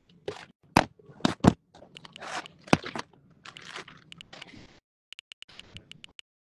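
A phone's microphone rubbed and knocked against clothing: crackling scrapes with several sharp knocks in the first three seconds. Near the end comes a quick run of about nine light touchscreen keyboard clicks.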